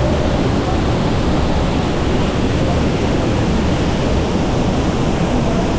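Waterfall: falling water making a steady, loud rush.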